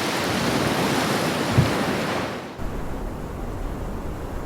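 Surf breaking on a beach: a loud rushing hiss of waves with a brief low thump in the middle, fading out about two and a half seconds in and leaving a quieter, low steady wind rumble.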